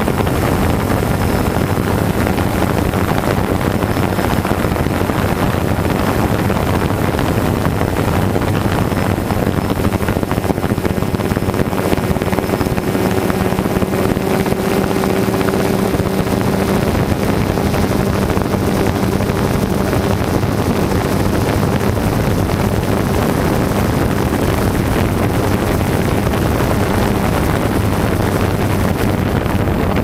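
DJI Phantom 2 quadcopter's four brushless motors and propellers running steadily, picked up by the GoPro on board, under heavy wind noise on the microphone.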